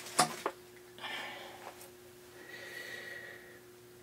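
A sharp click about a quarter second in as the RCA 4X555 tube radio is switched back on, then faint breathy noise over a steady low hum.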